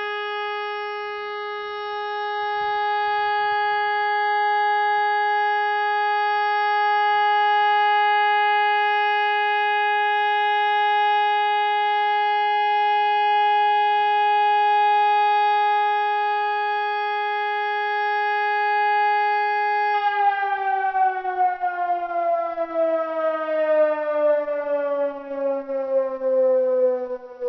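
SES electronic civil-defence sirens sounding the all-clear (Entwarnung) signal: one steady continuous tone. About twenty seconds in, the pitch starts a long downward glide as the siren winds down at the end of the signal.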